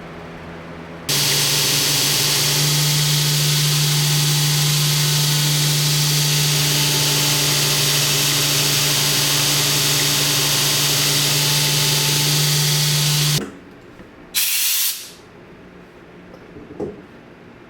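A power tool switches on with a low motor hum and a loud, steady hiss, runs for about twelve seconds, then cuts off suddenly. A short, sharp hiss follows about a second later.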